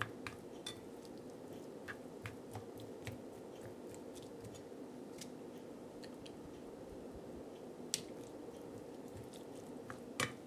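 Plastic rice paddle cutting through and folding sticky sushi rice in a bowl: soft wet squishing with scattered light clicks of the paddle against the bowl, the loudest about eight seconds in, over a faint steady hum.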